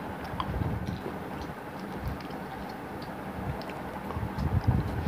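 Small clicks and soft thumps of fruit being picked from the plates and chewed, over a steady low hum. The thumps grow more frequent near the end.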